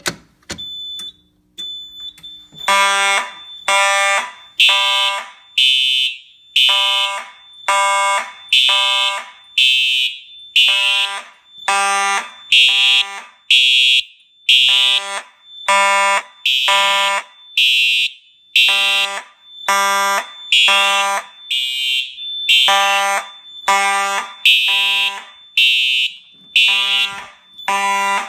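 Simplex fire alarm horn strobes sounding the temporal code 3 evacuation pattern, blasts in groups of three, starting about three seconds in. A 4903-9219 mechanical horn buzzes together with a TrueAlert SmartSync electronic horn.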